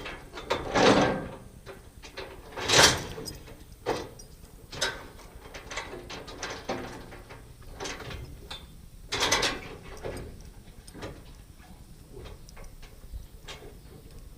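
Irregular series of mechanical clanks, rattles and scrapes, metal parts being worked, with the loudest ones about a second, three seconds and nine seconds in.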